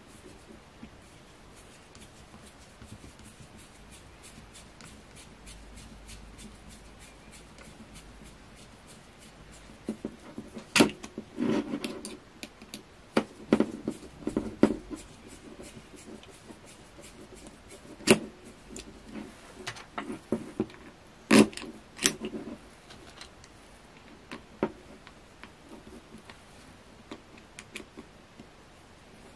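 Small screwdriver working at the screws in the plastic head of a laser air-assist pump, with light ticking and scraping of the tool and the handled housing. In the middle stretch come a run of sharp clicks and clacks as the tool and pump knock together.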